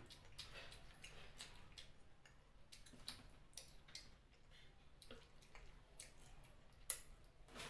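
Faint, wet eating sounds of someone chewing and sucking on chicken feet in curry: soft smacks and clicks a few times a second, irregular, with one sharper click near the end.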